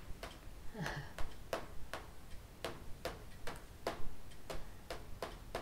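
Clock ticking steadily, about three ticks a second, in a quiet room.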